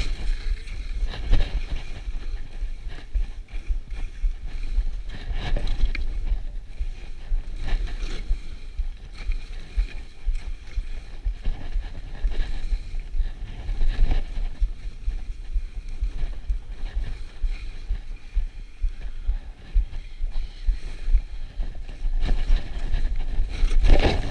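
Skis sliding and turning on snow, the edges scraping in repeated swishes a few seconds apart, with wind buffeting the camera's microphone as a steady low rumble. The loudest swish comes near the end.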